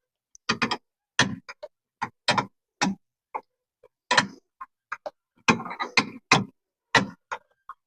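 Ratchet wrench clicking in short irregular bursts as it is worked back and forth, tightening a turnbuckle that pulls the engine forward.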